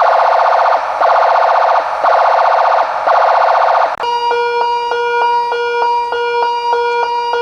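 Multi-tone electronic industrial warning siren sounding loudly through its horn speaker. It gives a harsh pulsing tone in bursts of just under a second, then about four seconds in it switches abruptly to a different selectable tone, a fast repeating beep pattern of about three or four beeps a second.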